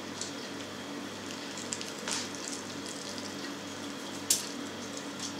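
Minced meat being forced from a hand-cranked vertical piston sausage stuffer through its nozzle into a casing: soft squelching and crackling as it fills, with a sharp click about four seconds in.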